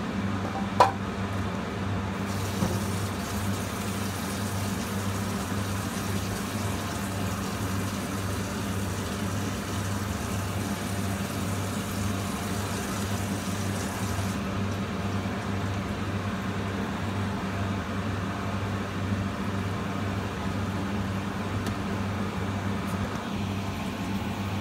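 Steady electric hum of a kitchen fan or appliance throughout. About a second in there is a sharp clink as the pan meets the plastic container, followed by a hiss of adobo sauce being poured and scraped from the pan into the container that stops about halfway through.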